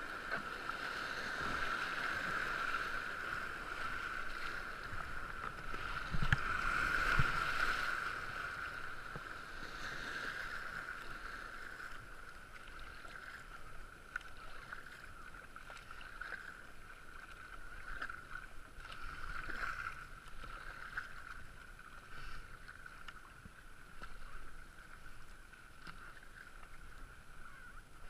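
Rushing whitewater around a kayak running river rapids, with paddle strokes and splashing, heard from a helmet-mounted camera. About six to seven seconds in it gets louder with a few knocks, then the water gradually quietens.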